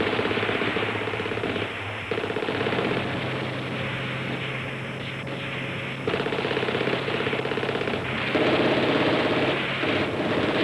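Light machine guns firing in several rapid bursts of about a second each, with sparser rattling between them.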